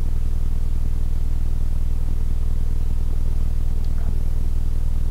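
A steady low hum, even in level throughout, with a faint click about four seconds in.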